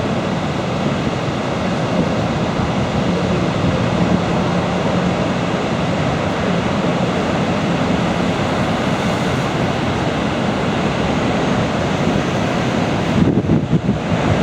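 Steady rush of falling and churning water at Niagara Falls, heard from a tour boat, with wind noise on the microphone and a faint low engine hum. Gusts buffet the microphone near the end.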